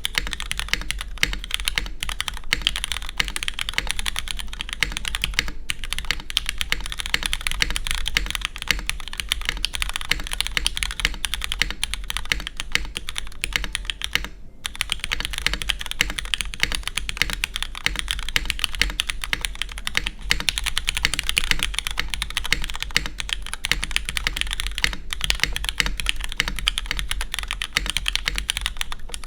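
Steady, fast typing on a Merisi 500c 65% mechanical keyboard with lubed Cherry MX Black linear switches on a carbon fiber plate and GMK keycaps: a dense stream of key strikes, broken by brief pauses about five and a half and fourteen and a half seconds in.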